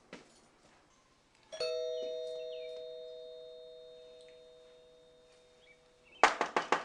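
Doorbell chime struck once, a single ringing tone that fades slowly over about four seconds. Near the end comes a quick run of loud, sharp knocks.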